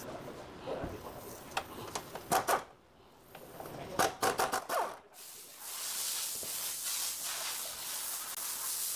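Socket wrench and steel bolts clicking and clinking as a car's front engine mount is unbolted, with a quick run of clicks about four seconds in. A steady hiss takes over from about halfway.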